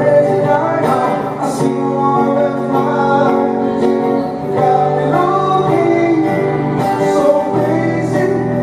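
Live music for voice and guitar: a man singing a melody over a Godin guitar played steadily underneath.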